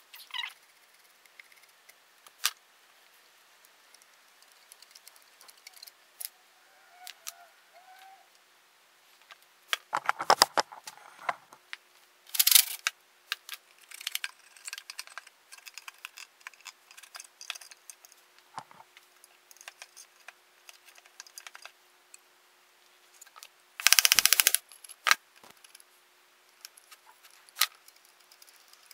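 Scattered clicks and light metal clinks as an old small engine's carburetor linkage and parts are handled and taken apart, with two louder rattling bursts, one about ten seconds in and one a few seconds before the end.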